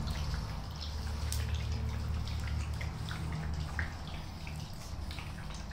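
Golden retriever puppies eating from bowls: many small wet smacks and clicks of lapping and chewing, over a low steady hum.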